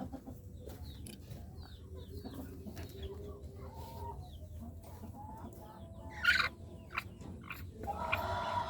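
Indonesian native village hens (ayam kampung) clucking softly in short scattered calls, with a sharp loud call about six seconds in and a louder drawn-out call near the end.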